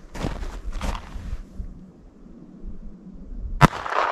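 A single shot from a .22 long rifle pocket pistol loaded with 40-grain round-nose rounds: one sharp crack about three and a half seconds in, followed by a fading echo.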